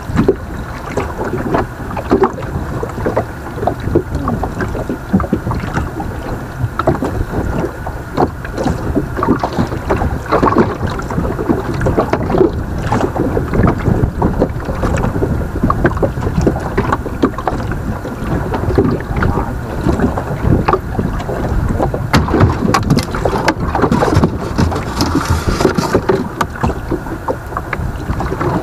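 Water slapping and knocking against the hull of a small fishing boat as it rocks, a continuous run of irregular knocks over a steady wash, with wind on the microphone.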